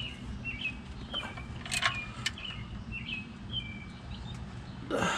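A small bird chirping repeatedly, short high chirps about twice a second. A few sharp clicks about two seconds in come from a wrench on the oil drain plug being snugged up.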